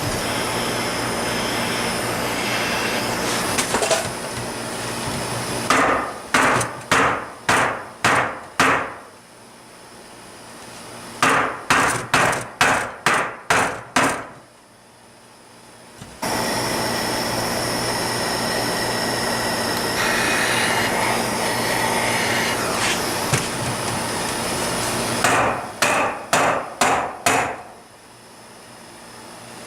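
Steady hiss of a torch heating a Tomos A35 moped's aluminium engine case. Three runs of about five or six sharp knocks, about two a second, as the hot case is smacked down on a block of wood to knock the blind bearings out of their bores.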